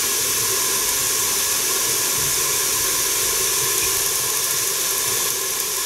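Pumpkin, onion and carrot frying in a lidded frying pan on a gas stove: a steady sizzling hiss.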